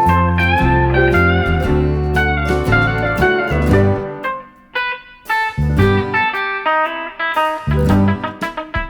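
Instrumental music led by a gliding slide or steel guitar over bass, with a short drop in level about halfway through before plucked guitar notes pick up again.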